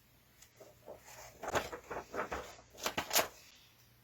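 Paper and packaging rustling and crinkling in a run of short bursts around the middle, as a comic book and its inserts are handled and searched through.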